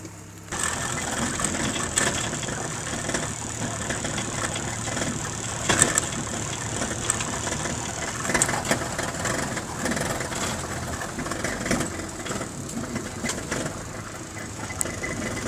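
Car running: a steady engine and road noise with scattered knocks and rattles, starting suddenly about half a second in.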